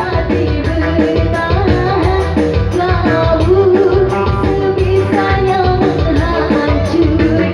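Live dangdut band music: a sung melody over drums, bass and guitar with a steady beat.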